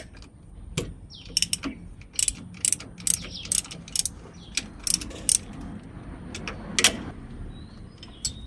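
Socket ratchet wrench clicking as it turns the 14 mm nut on the power steering pump mounting: runs of sharp clicks, a few a second, with short pauses between strokes.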